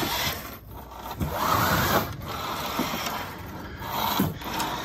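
Rope halyard and elastic take-up lines pulled through blocks and deck fittings on a sailing dinghy, the rope rubbing and rasping over the fittings in a few pulls, with small knocks from the fittings.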